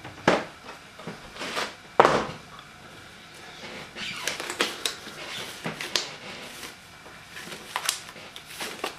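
A disposable glove being pulled on: scattered rustling and light clicks, with two sharper knocks about a third of a second and two seconds in.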